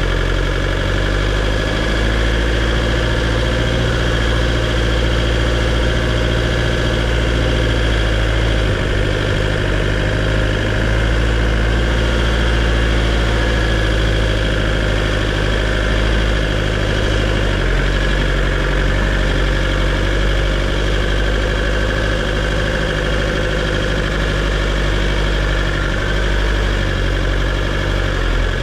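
A motor engine running steadily with a deep low drone, its tone shifting slightly about nine and eighteen seconds in.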